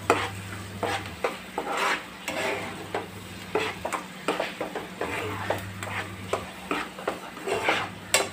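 A steel spoon stirring and scraping thick tomato-puree masala around a nonstick frying pan, a quick irregular run of scrapes and taps against the pan, with a light sizzle from the masala cooking on high heat.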